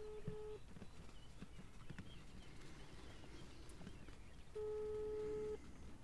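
Telephone ringback tone heard through a mobile phone's earpiece while a call waits to be answered: a steady single-pitched beep. One ring ends about half a second in, and a second ring lasting about a second comes near the end.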